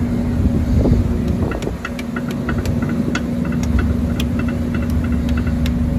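Steady low hum of running machinery, with a run of light, evenly spaced clicks, about five a second, starting about a second and a half in.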